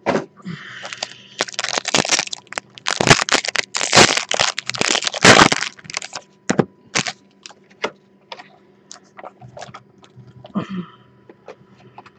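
Foil trading-card pack crinkling and tearing open, a dense crackle lasting about five and a half seconds, then scattered light clicks and rustles as the cards inside are pulled out and handled.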